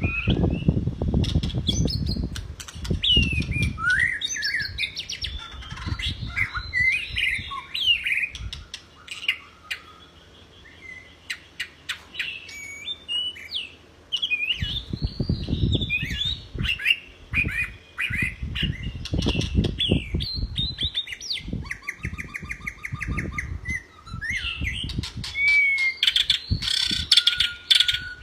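White-rumped shama in full song: a fast, varied run of whistles, chirps and trills, with an even rattling trill about three-quarters of the way through. Low thumps come and go underneath, near the start and again about halfway.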